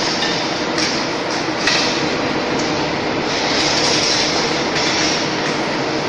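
Steady industrial machinery noise, with a few sharp metallic clicks about one and two seconds in.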